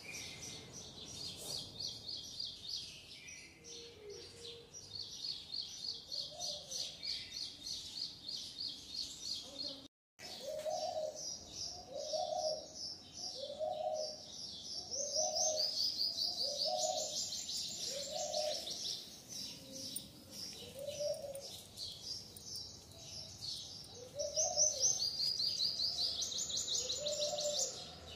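Small birds chirping in rapid high trills. After a brief break about ten seconds in, a lower call that rises and falls joins them, repeated about once a second and then more sparsely.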